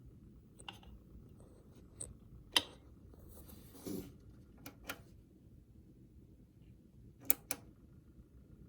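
Seasonic Focus GX-850 power supply fan spinning with a low steady whir, broken by irregular clicks and short rattles, some in quick pairs, with a longer rattle about four seconds in. This is the unwanted rattle the unit makes while its fan runs.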